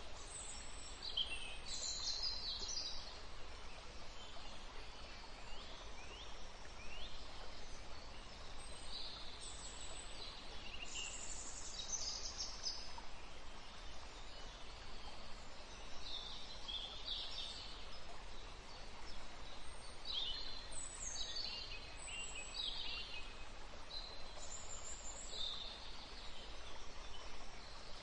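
Birds chirping: short, high chirps and trills in clusters every second or two, over a steady faint hiss.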